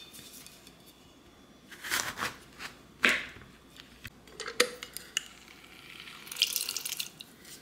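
A kitchen knife cutting lemons and knocking on a wooden cutting board, a few knocks with the loudest about three seconds in. Near the end a handheld citrus squeezer presses a lemon half, its juice crackling and dripping into a plastic blender cup for about a second.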